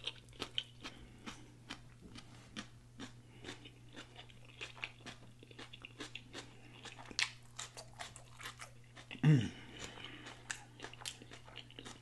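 Close-miked chewing of a mouthful of onion-wrapped cheeseburger: wet smacking and many sharp mouth clicks. About nine seconds in comes one short hummed voice sound that falls in pitch.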